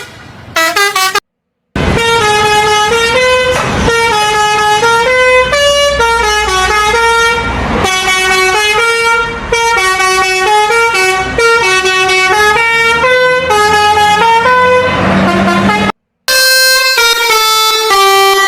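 Indonesian bus 'telolet basuri' musical horn playing a melody of stepping horn notes, with a low vehicle-engine rumble underneath. The sound drops out briefly about a second in and again near the end.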